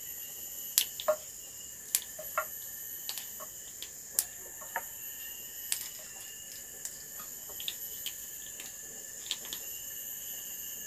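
Steady high chirring of insects, with scattered sharp snaps as fresh long beans are broken into pieces by hand.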